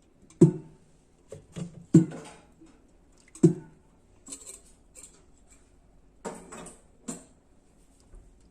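Kitchenware knocking and clinking, a glass and kettle or utensils being handled: a string of sharp knocks, the loudest about half a second, two and three and a half seconds in, with smaller clinks between.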